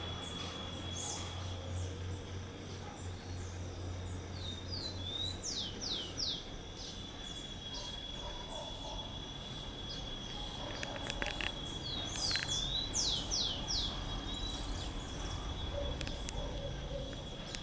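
Rufous-collared sparrow calling: two bouts of three or four quick, downward-sweeping high notes, each led in by a few short rising chips, about five seconds in and again about twelve seconds in. A steady high-pitched tone sounds underneath.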